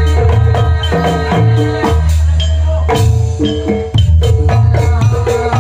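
Live Javanese jaranan gamelan ensemble playing a Banyuwangi-style gending through a sound system: kendang hand drums, pot gongs and metallophones struck over heavy bass. The music drops briefly about four seconds in, then the full ensemble comes back in.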